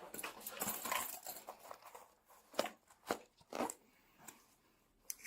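Clothing and gear rustling against a body-worn camera's microphone, followed by a few separate clicks and knocks about half a second apart.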